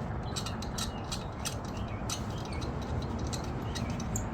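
Faint, scattered clicks of metal engine parts being handled as a camshaft is set back into a cylinder head, over steady background noise.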